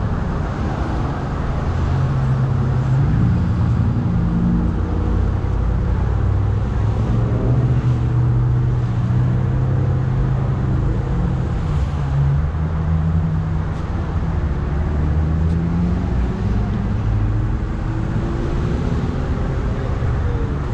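Low, steady engine drone with street traffic noise; its pitch slowly rises and falls over several seconds.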